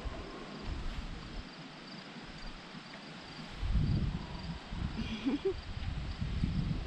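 Outdoor ambience: gusty low rumble of wind on the microphone, strongest from about four seconds in, with a faint steady insect trill high above it.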